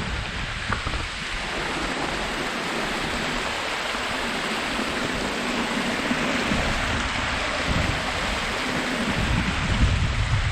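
Steady rushing of a small waterfall on a creek, with wind buffeting the microphone in low rumbles that grow stronger near the end.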